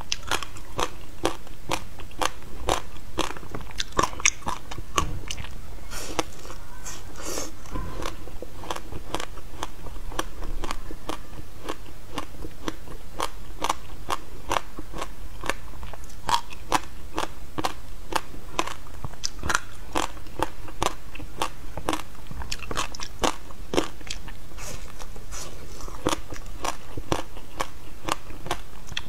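Frozen passion fruit pulp, seeds and all, being bitten and chewed close to a clip-on microphone: a dense, unbroken run of crisp ice cracks and crunches.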